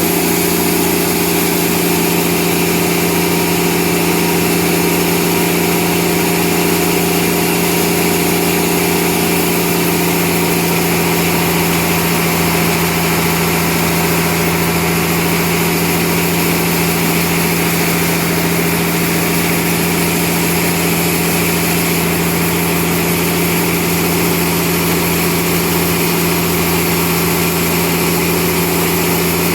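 Sawmill machinery running steadily with a constant, unchanging hum.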